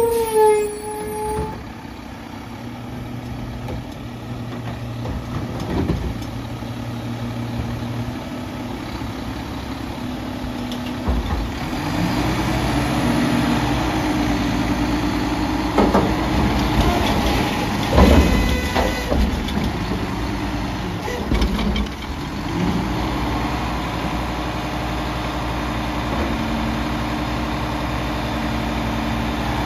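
Mack LEU garbage truck with a McNeilus Contender front-loader body: a brief squeal as it pulls up, then the engine idling and revving up to drive the hydraulics as the front forks raise the Curotto Can over the cab to empty it into the hopper. A couple of loud bangs midway through as the can is shaken out at the top, then steady revving as it comes back down.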